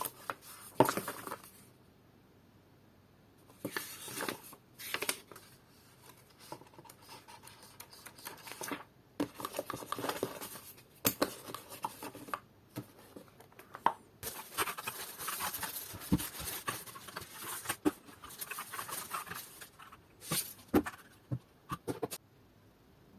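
Packaging being handled and unwrapped: irregular rustling and scraping, with scattered clicks and knocks. The longest stretch of rustling comes just past the middle.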